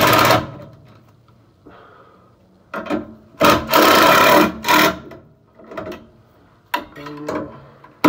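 Makita 18V cordless impact driver driving the mounting screws of a replacement furnace inducer motor, in stop-start bursts: a short one, then one longer run of about a second and a half near the middle, then a few quick short ones near the end as the screws are snugged tight.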